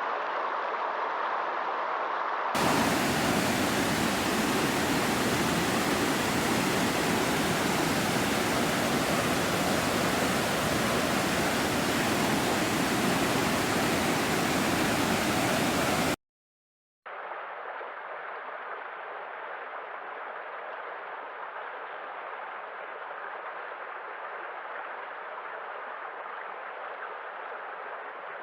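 Steady rushing water noise, cut between three recordings: a moderate rush, then a louder, hissier one for about 14 s, a brief dropout to silence, then a quieter, duller rush.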